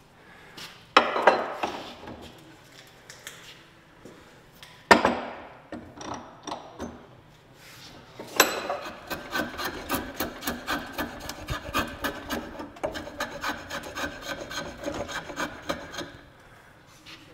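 Two sharp knocks, then a draw knife shaving a hickory axe handle in quick, short, scraping strokes, about three a second, roughing out the eye end. The strokes stop about a second before the end.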